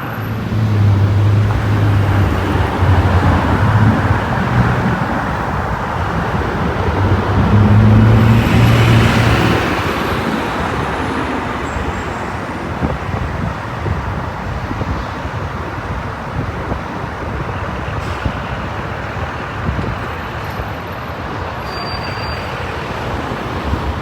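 Road traffic noise: a steady rush of passing vehicles, with a low engine hum through the first ten seconds and one vehicle passing loudest about eight to nine seconds in.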